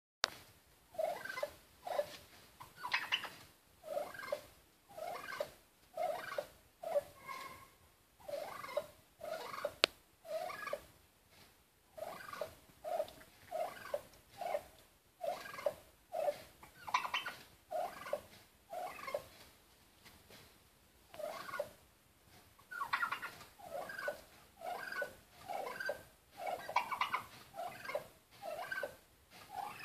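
Tom turkey calling at its own reflection in a mirror: a steady run of short calls, about one a second, with a few louder, longer calls now and then.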